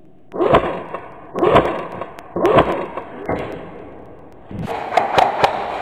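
Airsoft guns firing single shots about a second apart, each a sharp crack with a dull thump as BBs strike the steel wall panels. Near the end comes a quick run of three sharper hits.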